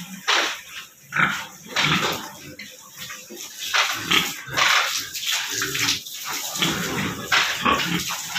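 Domestic boar grunting and slurping as it drinks water squirted from a garden hose into its mouth, in a string of short, irregular bursts.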